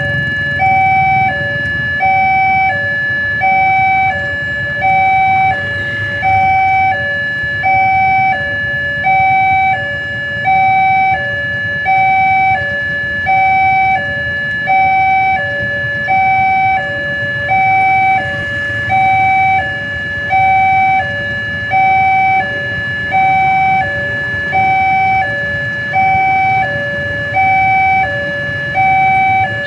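Railway level-crossing warning alarm sounding: an electronic two-tone signal alternating steadily between a higher and a lower note, about one high-low cycle a second, warning that a train is coming and the crossing is closed. A low rumble of waiting traffic runs beneath it.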